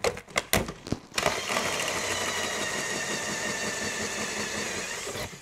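A few sharp knocks, then a power drill runs steadily for about four seconds, boring into the fire engine's fibreglass roof.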